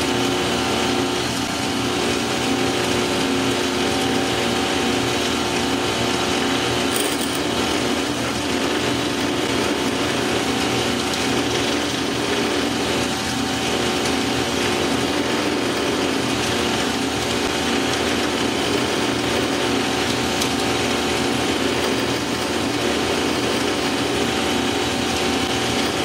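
Bench lathe running steadily, its motor and drive giving an even whine. An eighth-inch drill bit in the tailstock chuck is being fed into the end of the spinning set screw.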